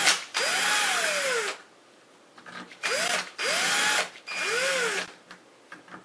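Cordless drill/driver driving long machine screws through a deadbolt's back mounting plate. It runs in about four short bursts, with a pause of about a second in the middle. In each burst the motor whine rises and then falls as the trigger is squeezed and let go.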